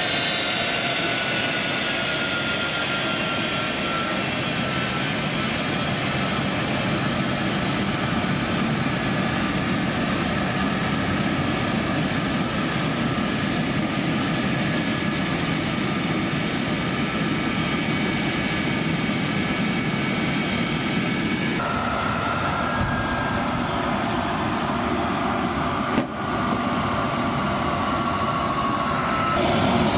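C-5M Super Galaxy's turbofan jet engines running loud and steady, with a high whine that slowly falls in pitch. The sound changes abruptly twice, about two-thirds of the way through and again near the end, with a brief click between.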